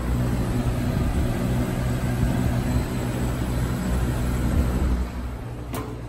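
Samsung 1/6 HP reciprocating refrigeration compressor (R-12) running with a steady low hum, a sign that the refrigeration system is working, over the air rush of a box fan. The hum drops away about five seconds in, and a single click follows.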